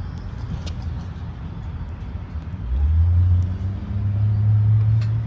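A motor vehicle engine running over a low background rumble. About halfway through, a steady low engine hum comes in and climbs a little in pitch.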